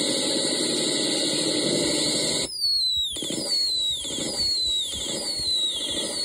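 Experimental touch- and light-controlled electronic sound machine: a steady hissing drone with high held tones cuts off suddenly about two and a half seconds in. It gives way to a repeating electronic chirp that falls in pitch, about every 0.8 seconds, over soft low pulses.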